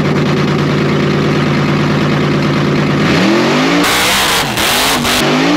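Supercharged engine of a 1963 Cadillac Coupe DeVille burnout car idling steadily, then revved up and down several times from about three seconds in. A loud harsh hiss rides over the revs for about a second and a half in the middle of that.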